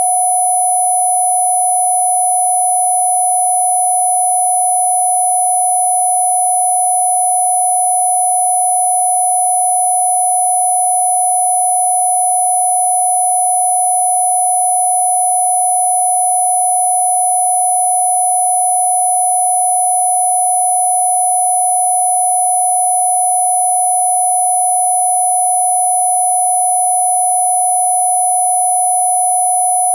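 A generated 'healing frequency' track: one steady pure electronic tone at a middle pitch, with fainter, much higher steady tones held above it. It does not change at all.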